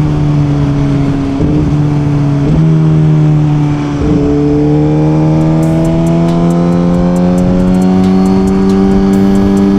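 Suzuki GSX-R1000's inline-four engine under way: a steady note with brief breaks in it about one and a half, two and a half and four seconds in, after which the pitch climbs steadily as the bike accelerates.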